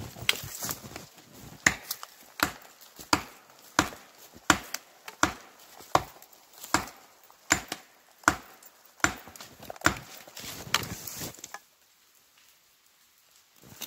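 A steady series of sharp knocks, about one every three-quarters of a second, stopping about two seconds before the end.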